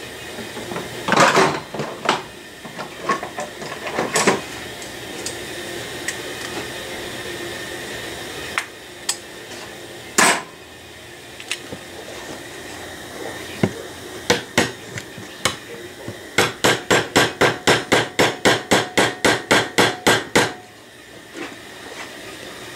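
Hammer tapping the pin through a Corvair distributor's drive gear and shaft. A few scattered knocks come first, then near the end a quick, even run of about twenty light blows, roughly five a second.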